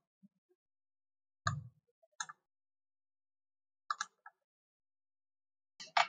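A handful of short, sharp computer mouse clicks, spaced a second or two apart, with near silence between them.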